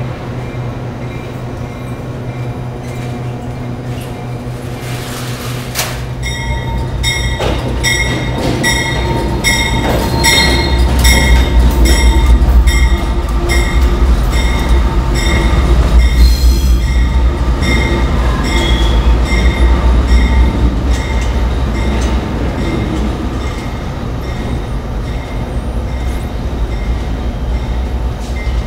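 Amtrak P42DC diesel locomotive with a 16-cylinder GE engine moving slowly past close by. Its engine rumble builds from about six seconds in, peaks in the middle and eases off near the end, with evenly spaced clicks of wheels on the track, over a steady low hum.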